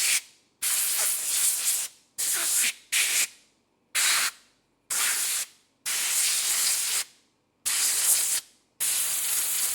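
Compressed-air blow gun releasing a series of short hissing blasts of air, about eight, each from a fraction of a second to just over a second long, starting abruptly and separated by brief silences.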